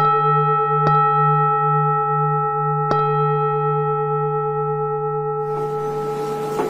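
Buddhist bowl bell struck three times, about a second and then two seconds apart, ringing on in several steady tones with a slow wobble in the lowest one. Near the end a rustle of movement rises under the fading ring.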